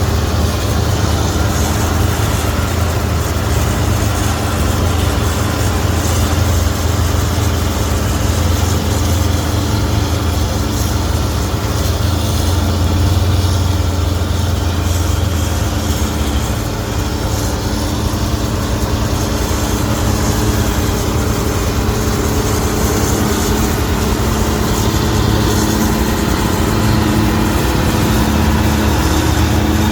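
A large engine running steadily, its lowest tone fading about halfway through and coming back near the end.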